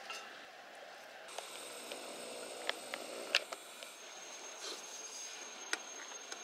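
Cookware being handled: a scattering of light clicks and taps over a faint steady hiss.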